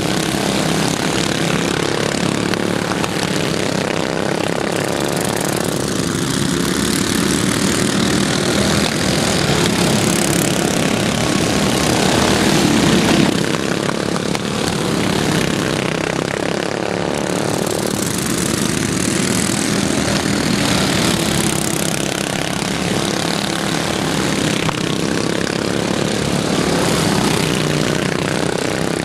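Several racing lawn mowers with stock single-cylinder flathead engines running together around a dirt oval, a dense steady engine drone that swells and fades as they pass, loudest about 13 seconds in.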